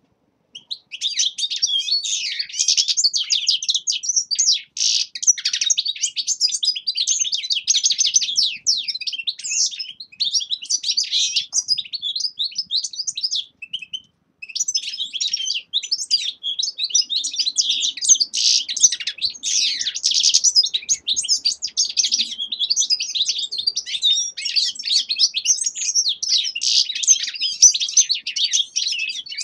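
Caged finches, European goldfinches among them, singing a rapid, dense twittering song of quick high chirps and trills. It begins about a second in and pauses briefly about halfway through.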